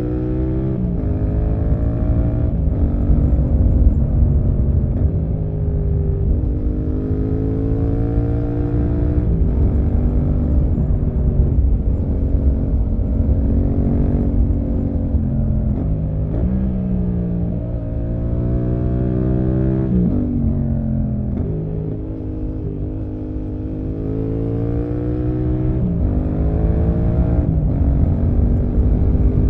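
Yamaha MT-07's 689 cc parallel-twin engine with an SC-Project exhaust, heard onboard while riding. The revs climb and fall again and again, with sudden drops at gear changes and easing down off the throttle into bends, over steady wind rush.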